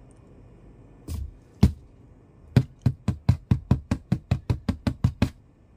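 Knuckles tapping on a cardboard box: two knocks about a second in, then a quick, even run of about a dozen taps, roughly four a second.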